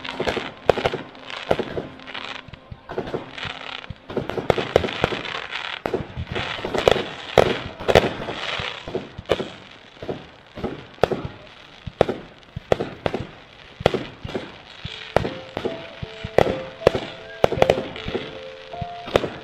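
Distant aerial fireworks bursting: an irregular run of sharp bangs, one or two a second, with crackling between them. Music comes in under the bangs over the last few seconds.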